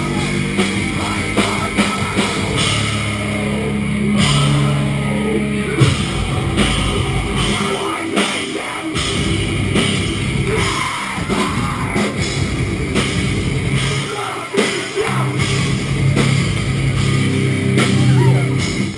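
Live rock band playing loudly: electric guitars and a drum kit, with sustained low chords and steady drum hits.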